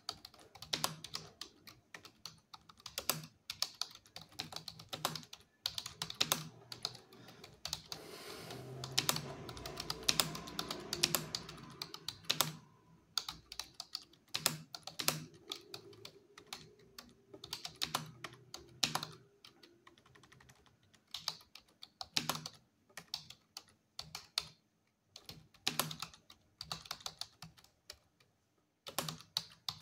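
Computer keyboard being typed on fast in an English typing-speed test: quick irregular runs of keystroke clicks with short pauses between words. A faint low hum rises under the typing for a few seconds about a third of the way in.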